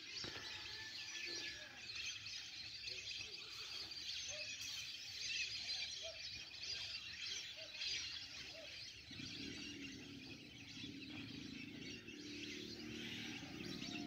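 Faint chorus of many birds calling at once, a dense high twittering with scattered lower single calls, from birds over a wetland. A low steady hum joins about nine seconds in.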